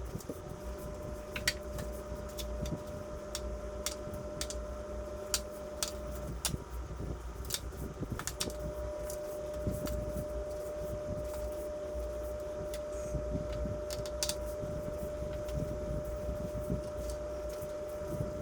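Scattered light clicks and clatter of utensils and a pan as cooked bacon-wrapped jalapeno poppers are moved into a pan, over a steady hum.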